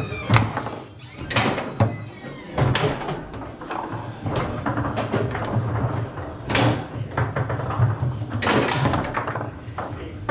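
Foosball table in play: sharp knocks at irregular intervals, about one a second, as the ball is struck by the rod figures and hits the table's walls, over a steady low hum.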